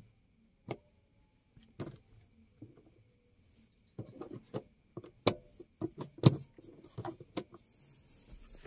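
Sharp plastic clicks of a 1993 Toyota Crown's interior dome and map light switches being pressed on and off. There are a few single clicks at first, then a quicker run of clicks from about four seconds in.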